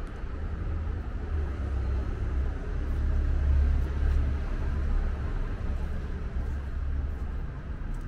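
Low rumble of road traffic, swelling to its loudest in the middle and easing off again.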